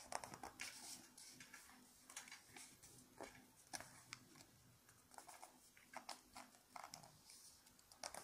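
Sheet of origami paper being handled and folded against the pages of a book close to the microphone: faint, irregular paper crinkles and rustles with soft clicks.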